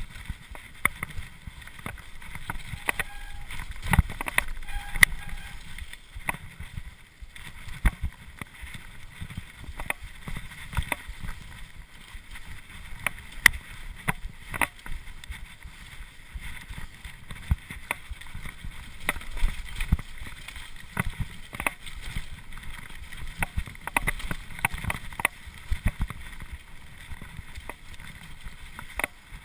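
Cube LTD Pro mountain bike ridden fast down a dirt forest singletrack: a steady rumble of tyres on dirt, with frequent sharp clatters and knocks from the bike over roots and bumps, and wind on the microphone.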